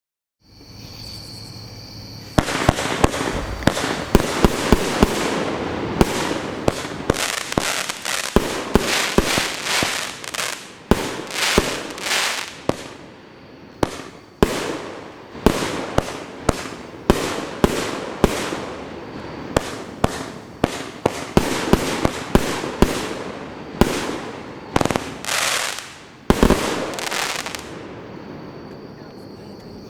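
A 25-shot, 500-gram consumer fireworks cake firing its shots in quick succession, about one sharp bang a second, with a continuous hiss of noise between the reports. It starts about two seconds in and stops a couple of seconds before the end.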